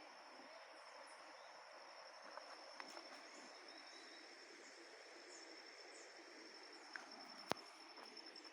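Faint outdoor ambience: an insect trilling on one steady high pitch, with faint short bird chirps above it. A single sharp click sounds about seven and a half seconds in.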